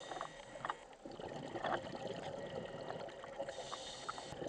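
Underwater sound on a scuba dive: a steady bubbling, crackling water noise, with a brighter hiss for about a second starting three and a half seconds in, typical of a diver's exhaled regulator bubbles.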